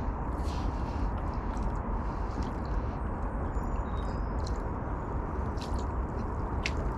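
Wind buffeting the microphone as a steady low rumble, with faint small splashes and knocks as a hooked common carp swirls at the surface and is drawn toward a landing net.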